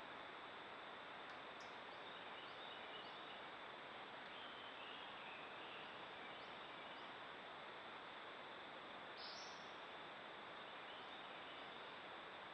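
Faint, short bird chirps scattered over a steady background hiss, with one chirp a little louder about nine seconds in.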